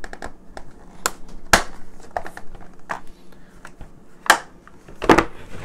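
Irregular clicks and taps of hard plastic as small figures are pushed into the compartments of a plastic collector case and the case is handled, the sharpest knocks about a second and a half in and a little past four seconds.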